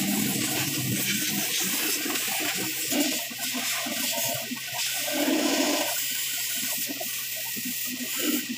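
Water from a hose rushing through a genset radiator being flushed out, pouring and splashing onto the floor, a steady hiss throughout. The radiator is clogged with rust.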